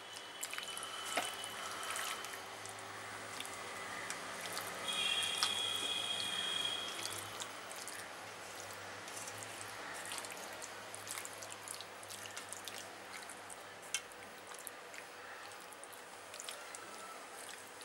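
Wet squelching and small clicks as a hand kneads spice-marinated raw chicken pieces in a stainless steel bowl. A steady high-pitched tone sounds for about two seconds around five seconds in.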